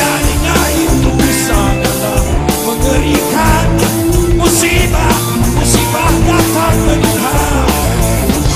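Rock band playing live: loud drum kit hits over held guitar and bass notes, with a male singer at the microphone.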